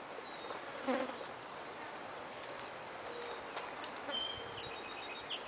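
Outdoor ambience in a rural yard: an insect, such as a fly or bee, buzzes briefly past the microphone about a second in. Short high bird chirps follow in the second half.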